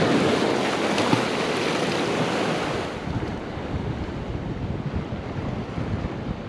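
Ocean surf washing, with wind buffeting the microphone. The wash is loudest for the first three seconds or so, then eases off.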